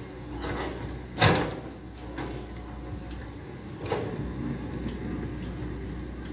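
Caterpillar excavator's diesel engine running steadily, with a few sharp clanks and scrapes of the bucket working dirt and gravel, the loudest about a second in and another near four seconds.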